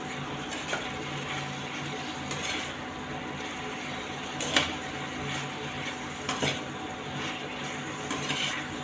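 A metal spoon stirs and scrapes chopped capsicum frying in a small kadhai on an induction cooktop, over a gentle sizzle. Every couple of seconds the spoon clinks sharply against the pan.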